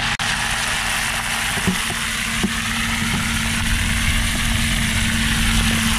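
Fish frying in hot oil: a steady sizzle, with a low steady hum underneath.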